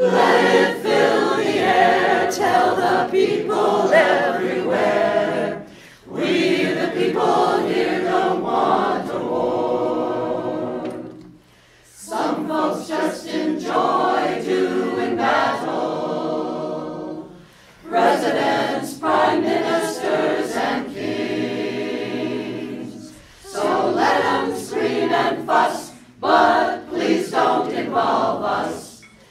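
Mixed choir of men's and women's voices singing a cappella, in phrases a few seconds long with short gaps between them.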